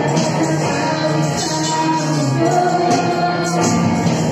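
Live worship band playing a praise song: singing voices over electric guitar and drums, steady and loud.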